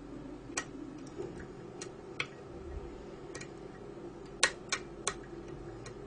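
Irregular sharp metallic clicks of a lock pick working the telescopic pins of a Mul-T-Lock cylinder under tension, about nine in all, the loudest about four and a half seconds in. These are pins being lifted and set one by one as the lock is picked.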